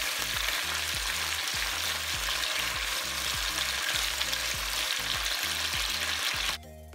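Sliced capsicums sizzling in olive oil in a frying pan over medium heat while being turned with tongs, a steady frying hiss as they cook toward half done. The sizzle cuts off suddenly near the end.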